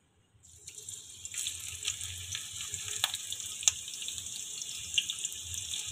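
Sliced onions sizzling in hot oil in a frying pan, just dropped in for a tarka. The sizzle starts about half a second in, builds up and then holds steady, with a few sharp pops.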